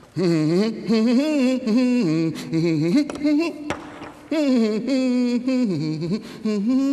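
A man humming a wordless tune in two long phrases, with a short break about halfway through; his pitch wavers up and down as he goes.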